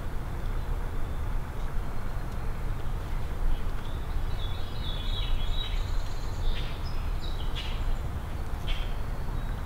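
Songbirds singing in short, repeated chirping phrases, mostly from about four seconds in, over a steady low rumble.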